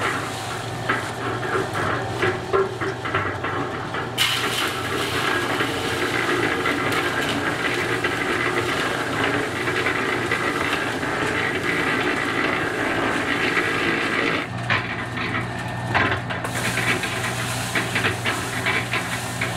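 Electric drum concrete mixer running, a steady motor hum under the gritty churning of concrete mix tumbling in the turning drum.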